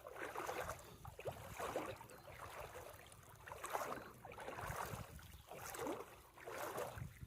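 Boots wading through shallow floodwater, the water sloshing and swishing with each step at about one step a second.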